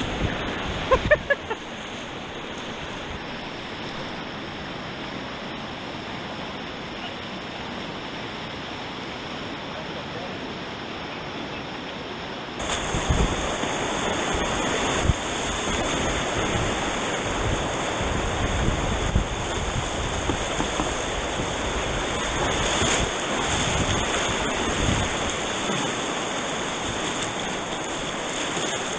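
Fast-flowing river water rushing steadily, getting suddenly louder and harsher about twelve seconds in.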